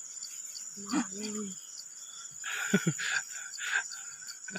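A steady high-pitched insect trill with a regular pulse runs throughout. Over it come a person's short wordless voice sounds, about a second in and again in a louder cluster around three seconds.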